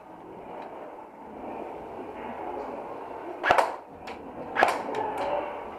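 Airsoft gunfire in a small indoor space: two sharp snaps about a second apart, then a few fainter clicks, over a steady low background noise.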